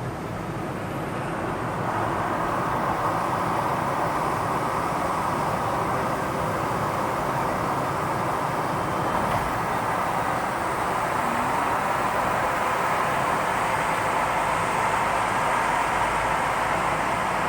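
Steady vehicle noise that builds over the first couple of seconds, then holds level.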